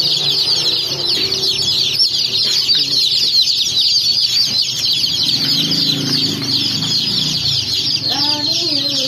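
Newly hatched Rhode Island Red and Black Australorp chicks peeping together, a steady chorus of many quick, high chirps.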